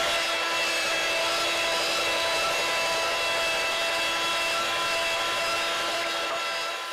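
Electric meat grinder running steadily with a motor whine, mincing raw salmon with parsley. It cuts off near the end.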